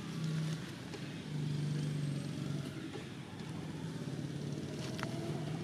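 A vehicle engine running, a low hum that swells and eases in level.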